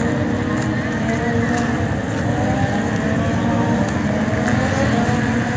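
Several motorcycle engines running at low speed as bikes ride slowly in to park, their pitch rising and falling gently over a steady mix of engine noise.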